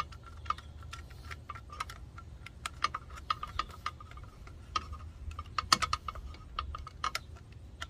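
A screwdriver turning a wire terminal screw tight on a 30-amp plug, small metal clicks and ticks coming irregularly, with a quick cluster near the end, over a steady low background rumble.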